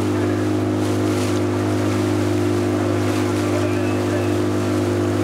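An engine running steadily at one even, low pitch, without revving up or down.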